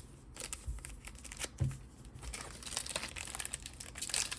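Foil booster-pack wrapper crinkling and tearing as it is opened, a run of crackly rustles that grows busier toward the end.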